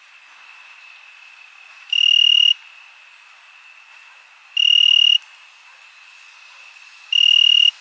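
Crickets chirping: a steady high-pitched chorus with one louder cricket trilling in three short bursts, about two and a half seconds apart.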